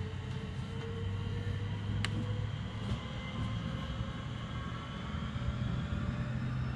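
Southeastern Class 465 electric multiple unit pulling away and gathering speed: thin motor tones rise slowly in pitch over a steady low rumble of the running train, heard from inside the carriage. A single sharp click about two seconds in.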